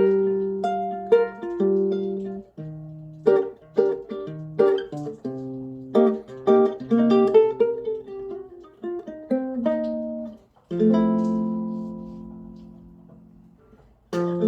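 OLIVE U420G guitalele, a small six-string nylon-string guitar with a spruce top, played fingerstyle: a run of plucked single notes and chords. About eleven seconds in, a chord is struck and left to ring, fading away over about three seconds.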